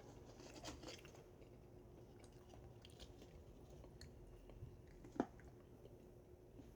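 Faint chewing and crunching of Pringles potato crisps, with one sharper crunch about five seconds in.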